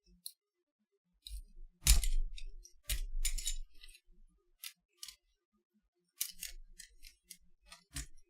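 Sharp clicks, knocks and light clinks of small tools and camera parts being handled and cut during a teardown. The loudest knock comes about two seconds in and another a second later, then a run of lighter clicks near the end.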